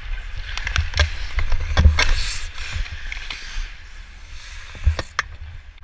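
Ice hockey skates scraping and carving on the ice, with a swell of scraping hiss about two seconds in and several sharp clacks of sticks and pucks on the ice. Wind rumbles steadily on the skating player's microphone.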